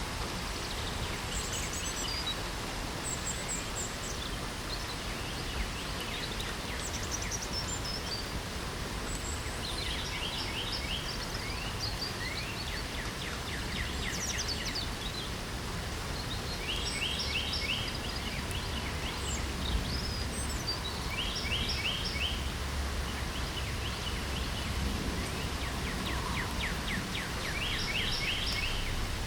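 Steady hiss of light rain, with several birds singing short chirps and rapid trills over it.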